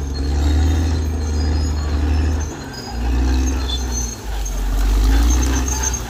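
Caterpillar D6R XL bulldozer's diesel engine running with a loud, low drone. The sound dips briefly about two and a half seconds in and changes pitch again a little after four seconds.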